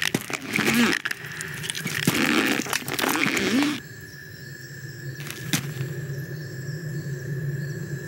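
Film sound-effects track with the dialogue removed: a steady background hum, with bursts of rustling noise and short creature-like vocal glides in the first half, then a quieter stretch broken by a couple of sharp clicks.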